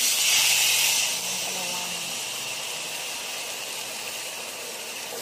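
Thin slices of raw pork sizzling as they go into a hot pan: a loud hiss at first that settles into a steady sizzle.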